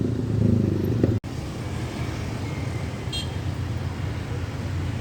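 Road traffic at a roadside: vehicle engines running with a steady low rumble, broken by an abrupt cut about a second in, then continuing, with a short high-pitched beep about three seconds in.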